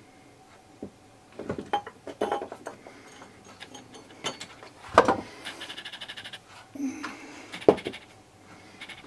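Hand tools and a glass jar being handled and put down on a wooden workbench: scattered knocks and clinks, a quick rattle of rapid clicks about halfway through, and a sharp knock near the end.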